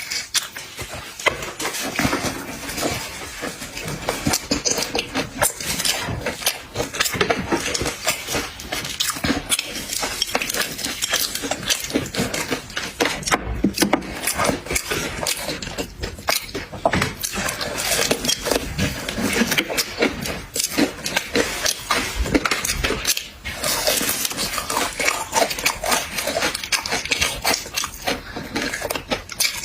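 Close-up sounds of eating seafood: dense, irregular clicks and cracks of shells being broken and handled, with chewing and dishes clattering.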